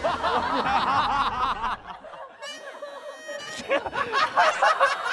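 People laughing in quick, choppy bursts, broken about halfway by a short electronic sound-effect jingle of steady high tones, after which the laughter picks up again.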